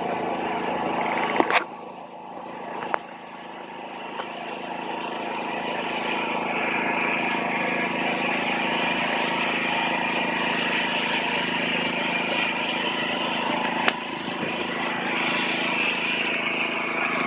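Rice transplanter's engine running steadily. It grows louder over the first few seconds and then holds level, with a few sharp knocks, one at about a second and a half, one at three seconds and one near the end.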